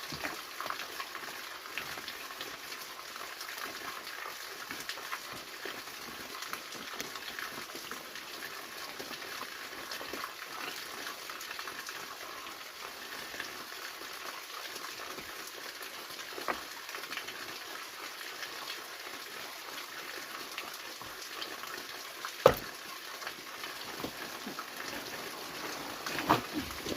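Steady rush of a waterfall, with scattered light ticks and one sharp knock about two-thirds of the way through.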